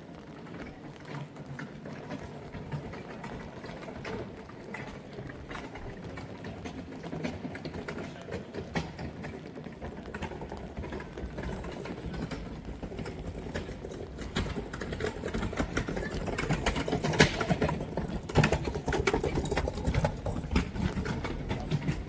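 Rain and footsteps on a wet street, with many rapid small clicks and taps, growing louder about two-thirds of the way through.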